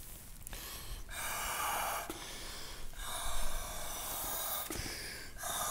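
Breath blown through the blowpipe of a Galician gaita, filling the bag before the drones and chanter sound: three long, airy blows with short pauses between them.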